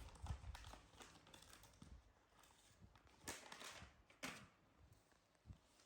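Near silence, broken by faint rustling and soft clicks, with two brief louder rustles about three and four seconds in.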